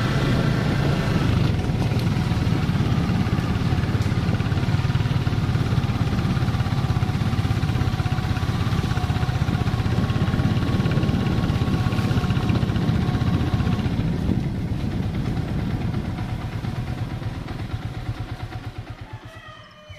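A loud, steady low rumble with faint wavering tones above it, fading out over the last several seconds.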